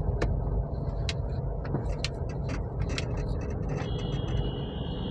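Honda car driving at steady cruising speed in a high gear, heard from inside the cabin: a steady low rumble of engine and road noise, with light ticks about once a second and a steady high tone for the last second or so.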